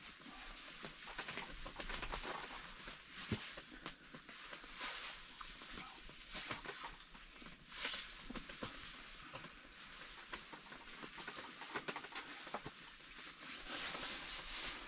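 Knife cutting salo (cured pork fat) on a small camp table: small irregular clicks and scrapes over a steady hiss, with one sharper knock about three seconds in.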